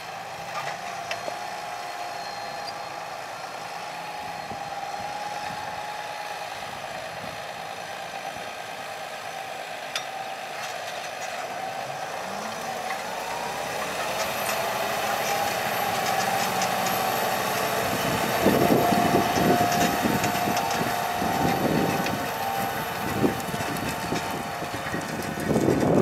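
Fendt 720 Vario tractor running under load while pulling a Kverneland four-furrow reversible plough with furrow press, a steady whine held over the engine. It grows louder as the tractor draws near, and from a few seconds past the middle irregular rattling and clanking from the rig join in.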